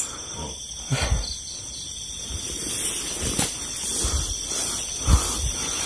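Crickets and other night insects trilling steadily, with a couple of low thuds, about a second in and again near the end.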